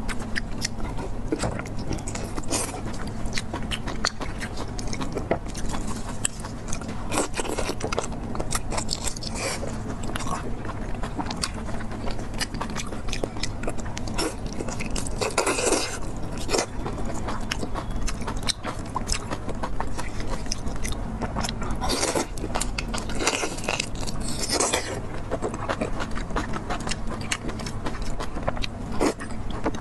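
Close-up biting and chewing of braised cow intestine, with many short mouth clicks, over a steady low hum.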